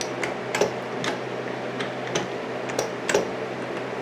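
Autobox 8x16 mini lathe running with a steady low hum, with irregular sharp ticks and clicks, about two or three a second.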